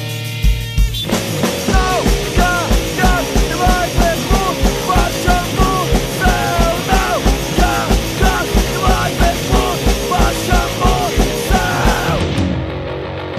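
Hardcore punk rock recording: fast drums, distorted guitar and bass. Vocals come in about a second in after a brief instrumental stretch and stop near the end as the band thins out.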